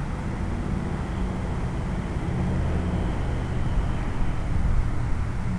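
RC airplane in flight, heard through its onboard camera microphone: a steady rumble of wind and propeller noise with a faint higher motor whine, growing a little louder near the end.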